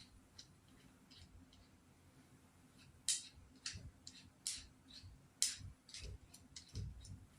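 Irregular sharp clicks of metal parts as a drill chuck is tightened onto the octagonal drive shaft of a drill-powered mini chainsaw, faint at first and louder from about three seconds in.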